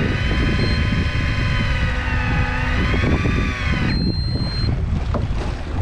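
Electric fishing reel's motor winding in a hooked fish from deep water: a whine that wavers in pitch as the fish shakes its head, cutting off sharply about four seconds in. A short high beep follows, over a steady low rumble of wind, water and boat.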